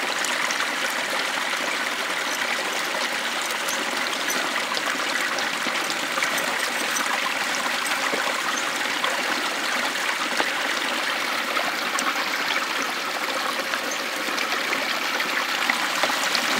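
Creek water running steadily over rocks, an even rushing sound that does not change.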